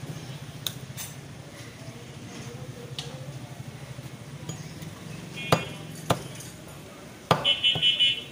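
Heavy butcher's knife chopping meat on a wooden log block: two single chops about five and a half and six seconds in, then a quick run of about five chops near the end, each with a short metallic ring. A steady low hum underneath.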